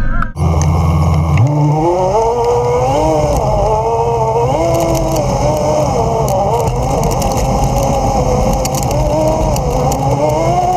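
Polaris RZR 800 side-by-side's twin-cylinder engine, steady at first, then rising in pitch as the machine pulls away about a second and a half in. After that its pitch climbs and falls with the throttle as it drives along a dirt trail.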